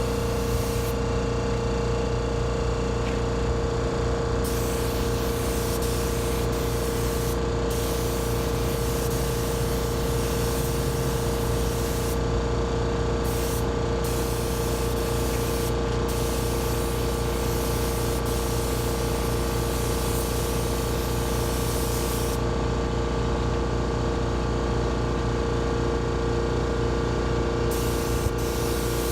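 Spray gun hissing as clear coat is sprayed onto a car bumper, in passes that start and stop every few seconds with a longer pause near the end. A steady motor hum runs underneath throughout.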